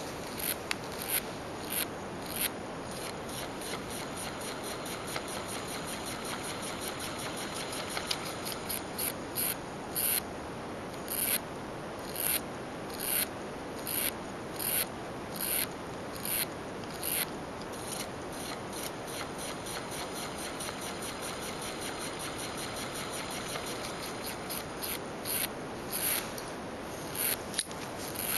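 Small homemade solenoid engine running: a steady mechanical noise from its moving parts, with sharp clicks coming irregularly about once a second.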